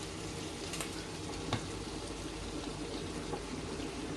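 Food sizzling steadily as it fries in a pan, with two light clicks of a utensil in the first two seconds.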